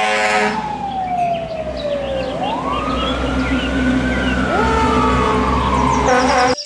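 Fire engine siren wailing: its pitch slides down, then rises and slowly falls again, with a second siren tone joining about four and a half seconds in. A horn blares at the start and briefly near the end, over a low engine rumble.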